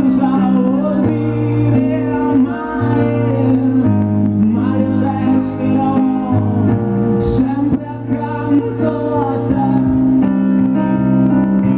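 Slow Italian pop ballad played live, with long held keyboard chords that change every few seconds and a wavering melody line over them, between sung verses.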